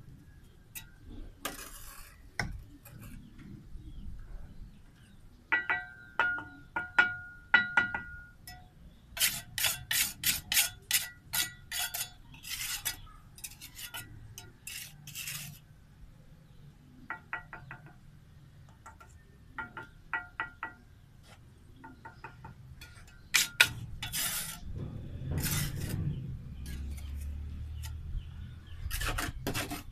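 Steel bricklaying trowel clinking and scraping against bricks and mortar: sharp taps and scrapes, with a brief metallic ring about six to eight seconds in and runs of quick scraping strokes.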